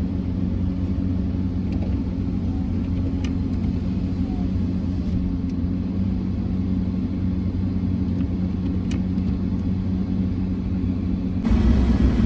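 Car driving on a snowy road, heard from inside the cabin: a steady low engine and road rumble. About eleven and a half seconds in, the rumble suddenly gets louder and rougher.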